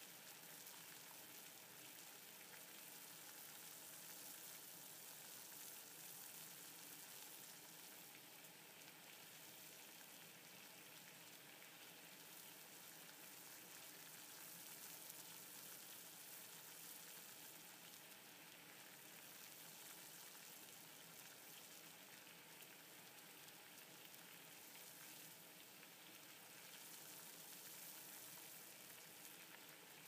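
Water at a rolling boil in a stainless steel pot on a stove: a steady, faint bubbling.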